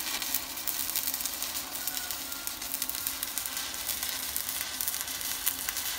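Stick-welding arc from a mini inverter welder burning an electrode on square steel tubing, a steady continuous crackle with no breaks. The arc is holding well and burning nicely.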